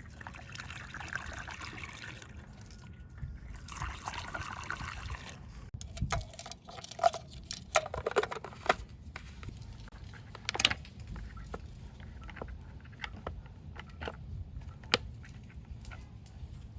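Liquid poured into a Husqvarna 120 Mark II chainsaw's tank in two pours, about two seconds each, followed by scattered clicks and knocks from handling the saw and its caps.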